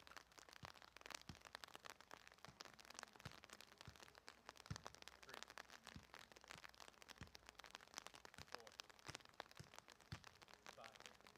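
Faint rain pattering as a dense stream of tiny ticks, with a soft thud about once a second from a soccer ball being kicked and juggled on grass.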